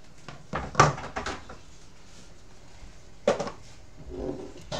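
Kitchen clatter: a few sharp knocks and clanks of cookware and utensils at the stove, the loudest just under a second in and another a little after three seconds.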